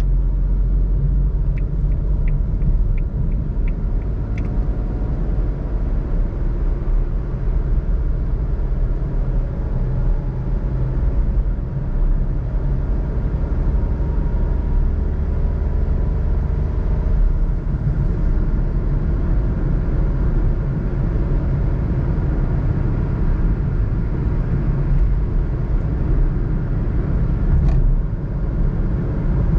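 Suzuki Alto 660cc three-cylinder engine with tyre and road noise, heard from inside the cabin while cruising steadily in fifth gear at about 80 km/h: a constant low drone. A few light ticks sound in the first few seconds.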